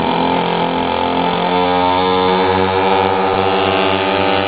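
Engines of a large radio-controlled twin-engine warbird model running on the ground, a loud, steady engine drone with a throbbing low end.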